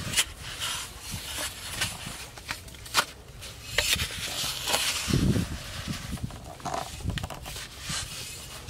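A long-handled spade chopping into dry soil and earth being scraped and scooped, in irregular thuds, scrapes and a few sharp knocks.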